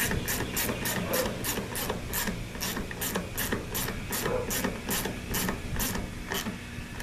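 Hand ratcheting tool clicking steadily as screws are run in, about three clicks a second. The clicking stops about six seconds in.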